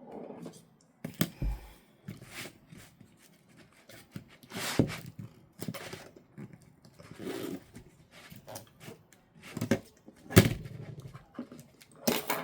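Irregular clicks and knocks with a few short rustling bursts: hands handling and cleaning the parts of an opened MacBook.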